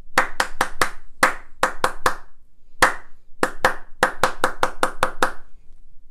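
Hand claps beating out a rhythm pattern for a rhythm-repetition ear-training exercise: about eighteen claps in uneven note lengths, with a short pause near the middle and a run of quick, even claps before it stops.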